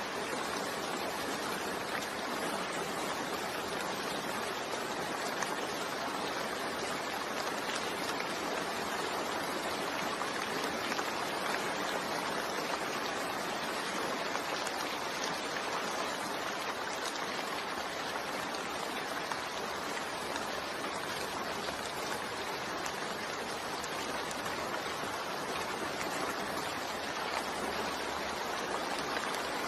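Steady rain falling: an even, continuous hiss with no thunder.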